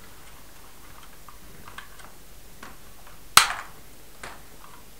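Light plastic clicks from a Dickie Toys police truck and its boat trailer being unhitched and handled, with one sharp knock about three and a half seconds in and a softer one soon after.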